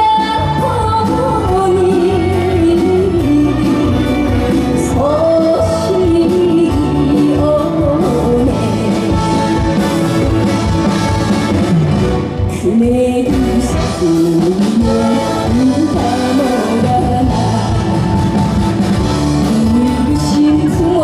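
Live band playing a Korean trot song, with a female voice singing the melody over bass and a steady beat.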